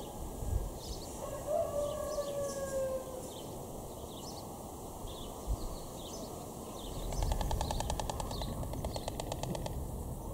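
White stork bill-clattering: a rapid dry rattle of about ten knocks a second, lasting two to three seconds from about seven seconds in. Small birds chirp faintly throughout, and a sliding tone comes about a second and a half in.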